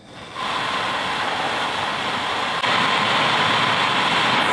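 A forge running hard, heating a piece of steel to red heat: a steady rushing noise with a faint whine, coming in about half a second in and growing louder a couple of seconds later.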